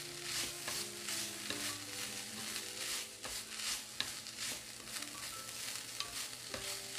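Dried squid strips coated in gochujang sauce and chili oil sizzle in a stainless steel pan while they are tossed with wooden chopsticks. The hiss swells with each toss, about twice a second, and there are a few light clicks against the pan.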